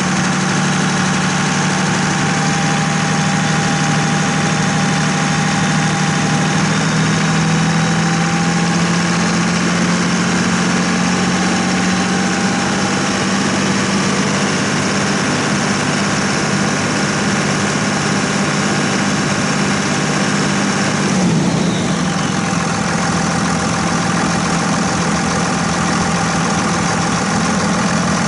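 24-valve 5.9-litre Cummins turbo diesel in a 2001 Dodge Ram 2500 running steadily at a held engine speed. About three-quarters of the way through its pitch shifts and drops.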